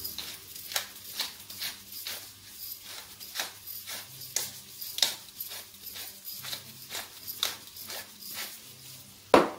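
Hand pepper mill grinding pepper, twisted in short irregular strokes that give a run of dry clicks about twice a second. A single loud knock near the end.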